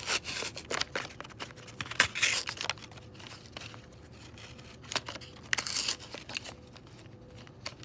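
Cardboard toy packaging being torn open by hand, with the clear plastic tray inside crinkling, in irregular rips and rustles. The tearing is busiest in the first couple of seconds, and there is another burst about five and a half seconds in.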